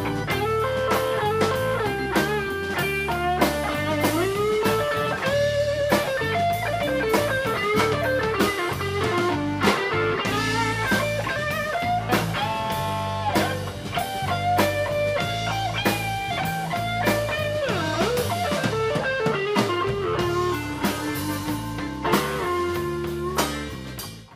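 Live electric blues band playing an instrumental passage: a lead electric guitar line with bent notes over bass and drum kit, fading out at the very end.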